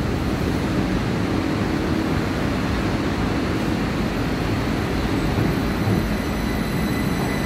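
Danhai light rail tram at the platform and starting to pull away after its doors close: a steady low rumble, joined about halfway through by a thin, steady high whine.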